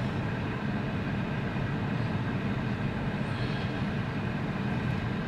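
Steady low vehicle rumble heard inside a car cabin, unchanging throughout.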